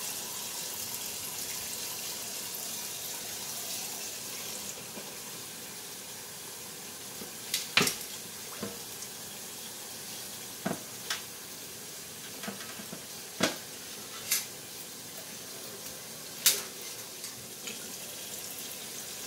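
Kitchen faucet running steadily into a stainless steel sink over a rack of raw pork spare ribs being handled and trimmed. Several sharp knocks and slaps from handling the ribs come in the second half.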